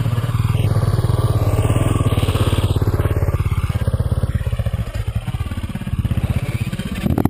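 Dirt bike engine running at low, even revs while riding on a sandy trail, heard close up from the rider's helmet.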